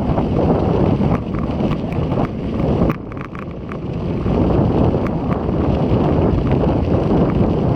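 Strong wind ahead of an approaching typhoon buffeting the microphone of a bicycle-mounted action camera while riding, a dense low rumble. It eases for a moment about three seconds in, when a few light ticks come through.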